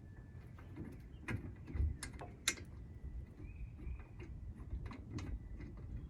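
Scattered metallic clicks and clinks of tools and bolts as a brake caliper is bolted back onto its bracket, with a few sharper knocks about two seconds in.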